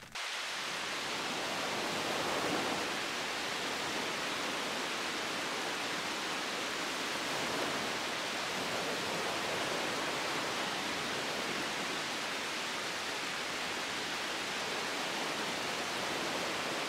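Steady outdoor ambient noise: an even, unbroken hiss with no distinct events, starting abruptly.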